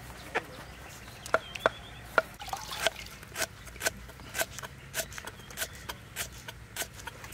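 Knife slicing lemongrass stalks on a wooden chopping board: short sharp knocks of the blade hitting the board. The knocks are irregular at first, then settle into a steady stroke a little under twice a second.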